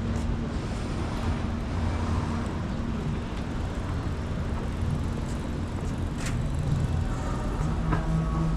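City road traffic: a steady low rumble of cars going by, with a couple of short sharp clicks in the second half.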